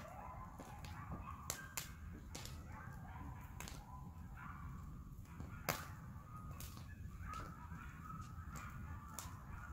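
Campfire burning, wood crackling with sharp irregular pops over a low steady rumble; the loudest pop comes about halfway through.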